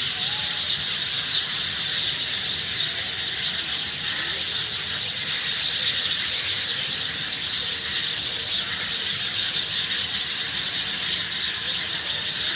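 A large flock of sparrows chirping all at once: a dense, unbroken high chatter of many overlapping calls.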